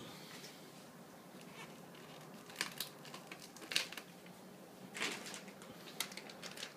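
Scattered clicks, light knocks and short rustles from handling packaging and parts during an unboxing, five or so separate sounds with quiet between them.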